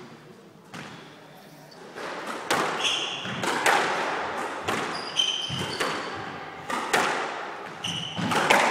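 Squash rally: the ball smacks off rackets and walls in a quick series of sharp hits that echo in the hall, starting about two seconds in. Short squeaks from players' shoes on the wooden court come in between.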